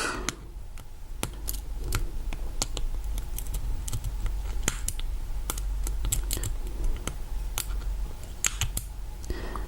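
Irregular small metallic clicks of a lock pick and tension wrench working the pin stack of a Master Lock lockout safety padlock during single pin picking, over a steady low hum.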